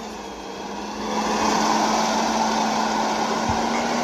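Natural-gas automated side-loader garbage truck's engine running as the truck pulls away, growing louder about a second in, with a steady hum throughout.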